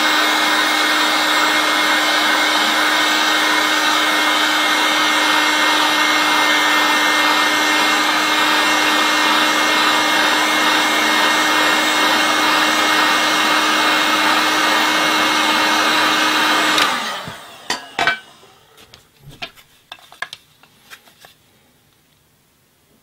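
Electric heat gun blowing with an even whir and a steady low hum as it heats a bamboo cane to soften it for straightening. It is switched off about 17 seconds in, and a few light knocks and clicks follow as the canes are handled.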